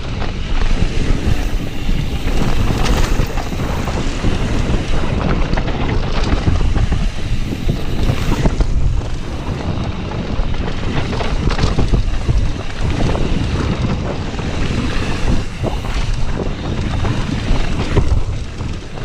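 Heavy wind buffeting on the microphone of a mountain bike rider's body-mounted camera during a fast descent on a dirt trail, with a steady low rumble of tyres on dirt and frequent rattling knocks from bumps. It fades near the end.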